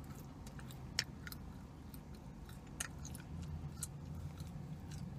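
A mouthful of giant sesame seed cookie being chewed close to the microphone, with scattered small clicks and crackles, the loudest about a second in. A steady low hum runs underneath.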